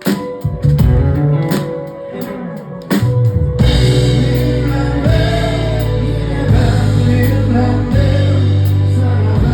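Live rock band playing. For the first few seconds it is a sparse groove of bass and regular cymbal ticks, then the full band with drums comes in about three and a half seconds in, carrying a held, wavering melody line.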